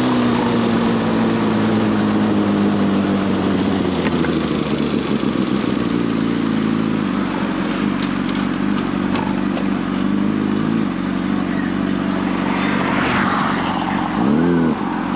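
Sport motorcycle engine heard from the bike itself, falling in pitch as the throttle closes and then running steady under a constant rush of wind noise. Near the end a quick throttle blip rises and falls in pitch.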